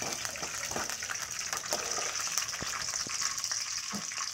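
Peanuts and chana dal frying in hot oil in a metal kadai: a steady high sizzle, with scattered clicks as a steel ladle stirs them against the pan.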